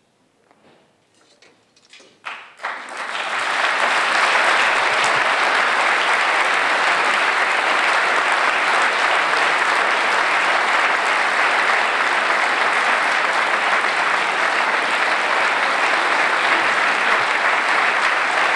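An audience breaks into applause: a moment of hush, then scattered claps about two seconds in that swell within a second into steady, full applause.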